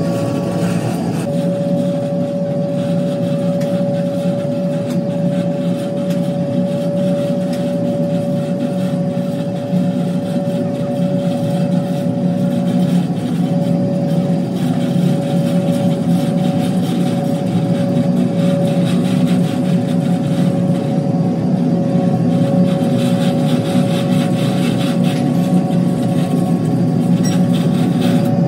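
A workshop motor running steadily: a constant drone with a single mid-pitched whine held throughout.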